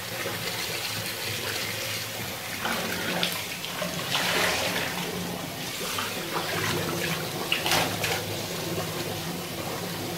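Water running and splashing, with a few brief louder splashes, as a soaped-up person is doused and scrubbed in a bath or shower.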